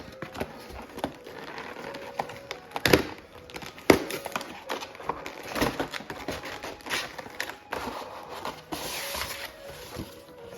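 Plastic packaging crinkling and rustling as it is handled, with scattered sharp taps and knocks; the crinkling is strongest near the end.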